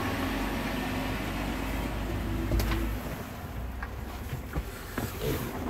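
Cat C15 diesel engine idling, heard inside the truck cab as a steady low rumble that drops off about three seconds in. A few light clicks and knocks follow near the end.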